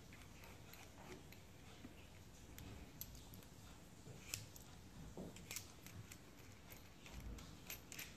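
Faint, scattered clicks and small taps of metal and plastic parts as a soldering iron handle is handled and its metal element sleeve worked into the threaded collar, with a few sharper clicks in the second half.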